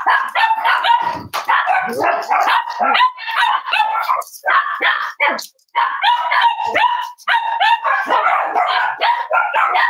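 Cavalier King Charles spaniels barking and yipping in play: a rapid, almost unbroken string of loud barks, with a short pause a little before the middle.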